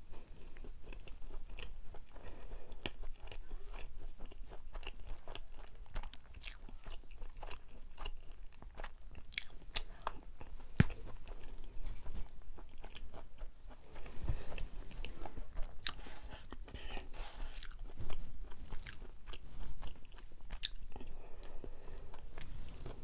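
Close-miked chewing and biting of a soft mugwort steamed rice cake, with many small mouth clicks.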